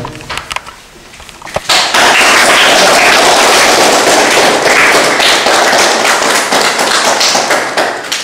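A group of people applauding: a few scattered claps, then dense, steady applause from about two seconds in that tapers off near the end.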